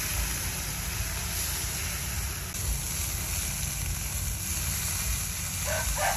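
A steady sizzling hiss from the metal wok over the fire as cola is poured over the chicken. Near the end a rooster starts to crow.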